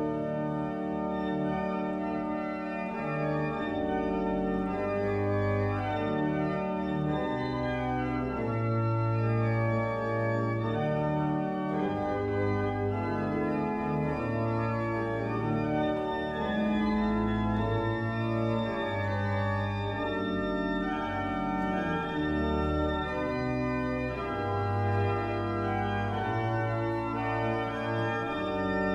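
Church organ playing the postlude at the close of Mass: full sustained chords over a deep pedal bass, moving to a new chord every second or two.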